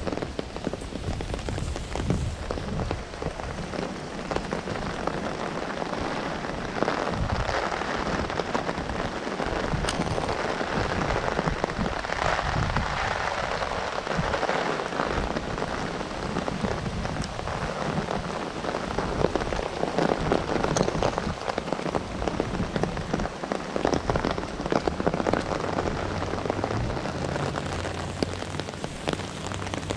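Heavy nor'easter rain falling hard and steadily, swelling louder a few times, with gusts of wind rumbling on the microphone.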